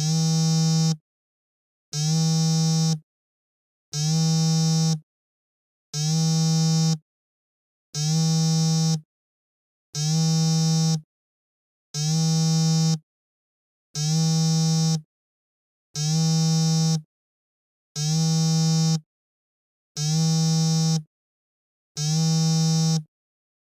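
Mobile phone vibrating, buzzing in one-second pulses every two seconds, twelve buzzes in all with silence between.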